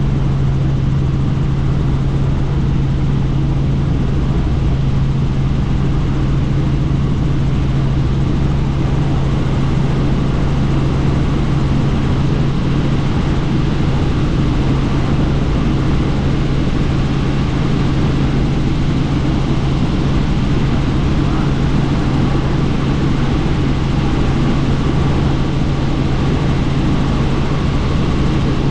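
Helicopter in steady flight: constant engine and rotor noise with a steady low hum, unchanging throughout.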